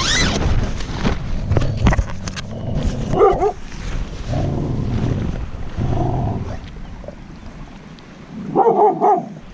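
Nylon tent door zip pulled open at the start, then a dog giving short pitched cries, once about three seconds in and again near the end.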